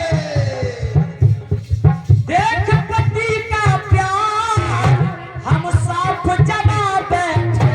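Indian devotional folk music, a jawabi kirtan: a voice singing a wavering, ornamented melody over a steady hand-drum beat and rattling percussion.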